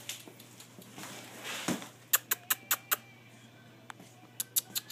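Short, sharp clicking squeaks in two quick runs: about five in a row around two seconds in, and another four near the end.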